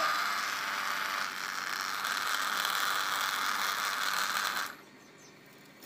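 Small DC hobby motor spinning a plastic air propeller on a homemade airboat, running steadily at full speed and then cutting off abruptly about four and a half seconds in.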